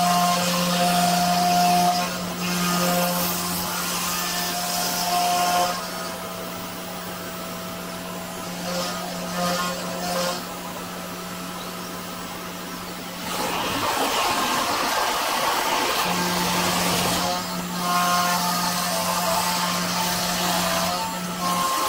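Genmitsu 4040 Pro CNC router cutting 3 mm plywood: the spindle runs with a steady hum under the rasp of the bit in the wood, while the stepper motors sound short steady tones that change as the axes move. The cutting gets quieter for several seconds mid-way, then about two-thirds in the hum stops briefly under a louder rasp before it picks up again.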